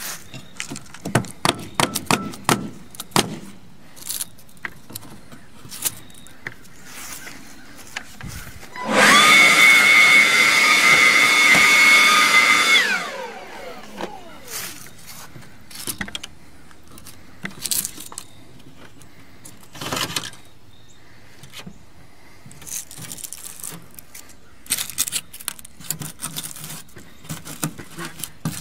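Hands working a pickup's windshield wiper arm and cowl: scattered clicks and knocks. About nine seconds in, a loud small electric motor whine winds up, runs steadily for about four seconds and then winds down.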